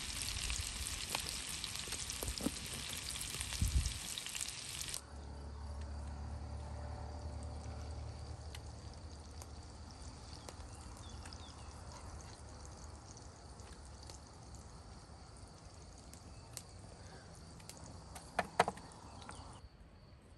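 Meatballs frying in a pan, a dense sizzle with a knock about four seconds in. About five seconds in the sizzle cuts off abruptly, leaving a faint steady low hum with a couple of clicks near the end.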